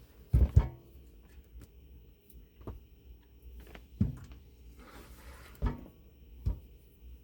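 Several dull knocks and thuds of parts being handled and set down in a DIY battery box, a quick double knock about half a second in, then single knocks spaced a second or so apart.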